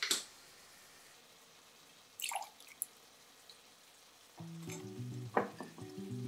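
Light kitchen handling sounds: a sharp clack at the start, a short clatter about two seconds in and a few small taps. Soft background music with low steady notes comes in about four seconds in.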